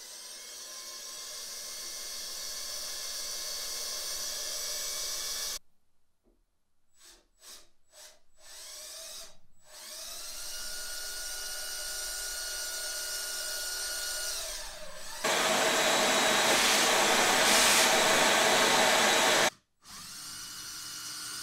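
Milwaukee cordless drill with a 2.5 mm bit drilling through the pre-drilled holes of a composite tip tank and wing. It runs steadily for about five seconds, gives a few short trigger bursts, and runs again. Then comes a louder, rougher stretch of drilling, and near the end it stops briefly and starts again.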